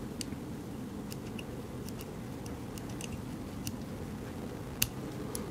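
Small scattered clicks and scratches of scissor tips pressing electrical tape down around the jog-wheel encoder's shaft and bearing, with a sharper click near the end, over a steady low hum.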